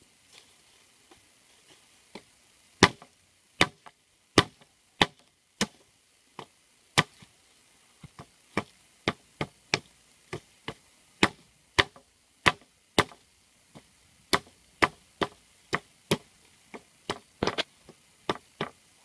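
A knife blade chopping at a thin wooden stick held on the ground, in sharp separate chops, a few at first, then quicker, about two a second, from about halfway on.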